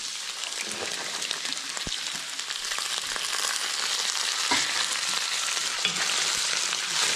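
Sliced beef sizzling in a large steel wok as chopped green vegetables are tipped in and stirred with a wooden spatula. The sizzle grows louder about halfway through, with a few short knocks of the stirring.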